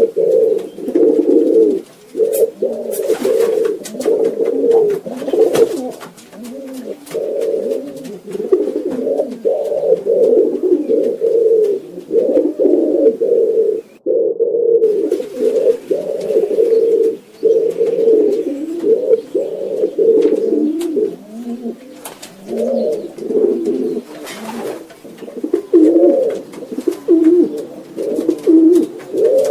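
Pigeons cooing, low throaty coos overlapping one another almost without a break, with a few faint clicks over the top.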